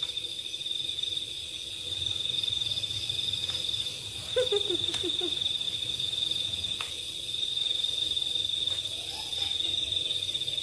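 A steady, high-pitched drone of forest insects, with a short falling run of about five low notes, like a laugh, a little past four seconds in. This is the laugh-like sound that the hikers took for a kuntilanak laughing.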